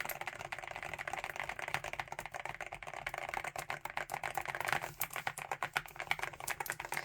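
Fast, continuous typing on an Akko MU01 wooden 65% mechanical keyboard with linear Akko V3 Piano Pro switches: a dense run of keystrokes.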